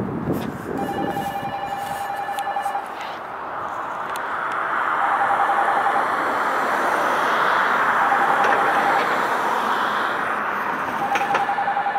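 Road traffic: a vehicle passing, its noise swelling over several seconds and easing off near the end. A steady high tone, about a second long, repeats every three seconds or so.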